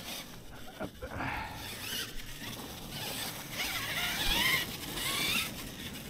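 Losi LMT Grave Digger RC monster truck running: its brushless electric motor whines, rising and falling in pitch with the throttle, over gear and drivetrain noise, loudest in the second half.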